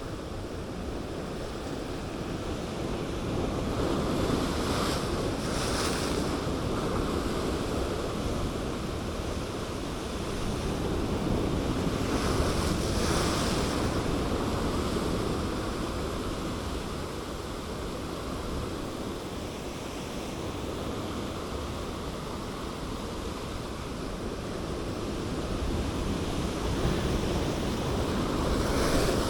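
Sea waves washing against shoreline rocks, swelling louder several times as sets come in, with wind on the microphone.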